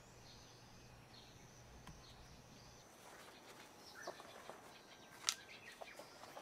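Faint birds chirping in short falling notes over a low hum. About three seconds in this gives way to hands rustling and handling cloth and padding, with scattered light clicks and one sharp click about five seconds in.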